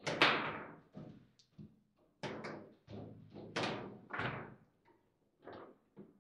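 Table football in play: an irregular string of sharp knocks and bangs as the ball is struck by the rod figures and hits the table, and the rods clack. The loudest bang comes right at the start.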